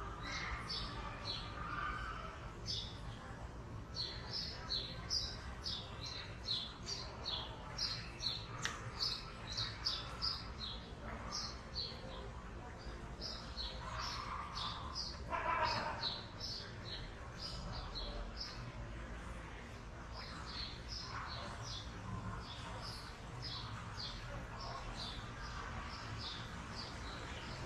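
Small birds chirping in quick, repeated short notes over a low steady background hum, with a brief louder, lower sound about halfway through.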